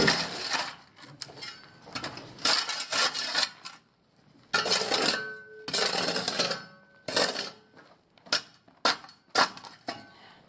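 Irregular scraping and clattering of hand-tool work on the ICF wall, a string of short noisy strokes with brief pauses between them.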